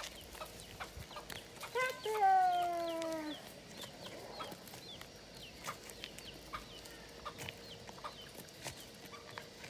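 Free-range chickens calling: one drawn-out call falling in pitch about two seconds in, then faint short chirps and clucks, with footsteps crunching on stony ground.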